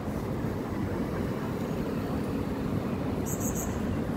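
Steady rumble of road traffic from cars passing on a multi-lane city street.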